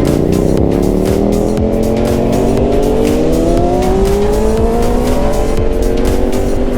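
Yamaha R6 inline-four sportbike engine with its stock exhaust, pulling under acceleration on the road. Its pitch climbs steadily for about five seconds, then levels off, with wind rumble underneath.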